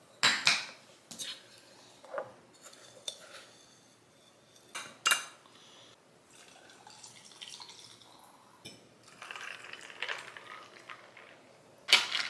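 Glassware clinking and knocking on a stone countertop, several separate clinks in the first half, then liquid pouring into a glass, and near the end a run of clinks from a glass straw stirring an iced coffee.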